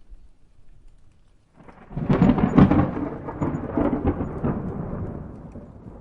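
A clap of thunder breaks about one and a half seconds in, with several sharp cracks and loudest near the start, then rolls off into a fading rumble. Light rain sits beneath it.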